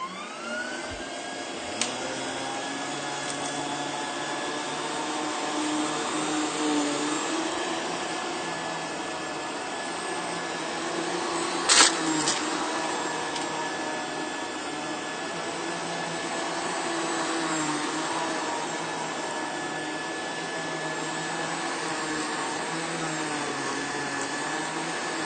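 Rainbow water-filter vacuum cleaner running while vacuuming carpet, its motor whine just reaching full speed at the start and then steady, wavering slightly in pitch as the nozzle moves. A single sharp knock about twelve seconds in.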